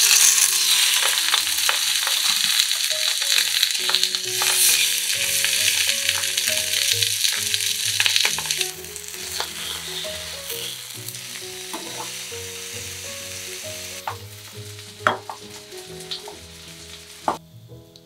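Floured sawara (Spanish mackerel) fillets laid into hot oil in a frying pan, sizzling loudly at once. The sizzle drops after about nine seconds and dies down further towards the end, with a few sharp clicks near the end.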